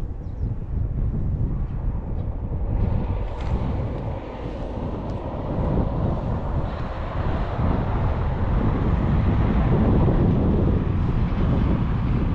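Wind buffeting the microphone: a steady low rumble that grows stronger after a few seconds.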